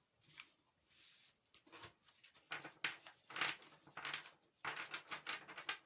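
Tarot cards being handled and shuffled by hand: an irregular run of short papery rustles and slaps.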